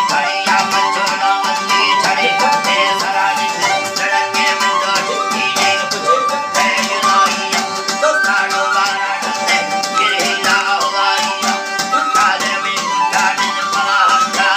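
Traditional folk music: held, winding melodic lines over a steady shaken-rattle rhythm.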